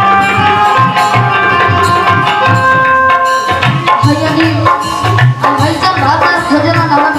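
Instrumental live-band music: hand drums keep a steady rhythm under held melody notes, and a new melodic line comes in about four seconds in.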